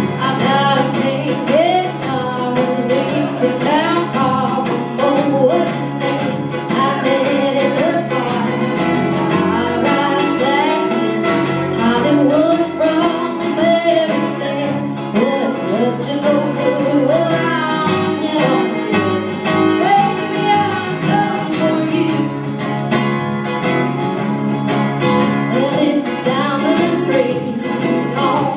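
A woman singing a country song, accompanied by acoustic guitar and fiddle.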